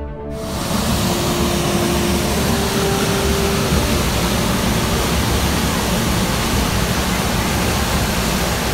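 Waterfall pouring into a rock pool: a steady, loud rush of water that comes in sharply just after the start.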